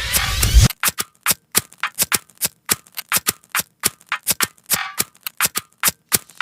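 Electronic bass-boosted music. A rising build with deep bass cuts off abruptly about 0.7 s in, then comes a sparse run of sharp, dry percussive clicks, about three to four a second, with silence between them.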